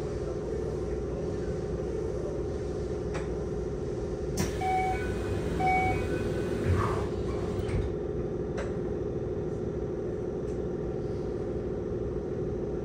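Keikyu 600 series electric train running at a steady pace, heard from inside the passenger car: a steady hum over the rumble of the wheels on the rails. About four seconds in there is a click, then two short beeps about a second apart.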